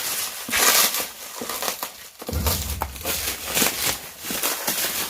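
Packaging crinkling and rustling in repeated bursts as it is handled and pulled open, with a low rumble of handling noise a little after two seconds in.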